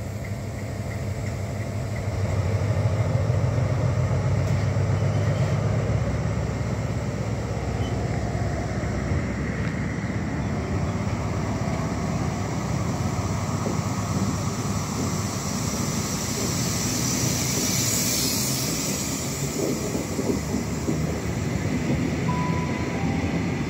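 CrossCountry HST moving along the platform: the Class 43 power car's diesel engine runs loudly for a few seconds near the start, then the Mark 3 coaches rumble steadily past on the rails, with a brief hiss about two-thirds of the way through.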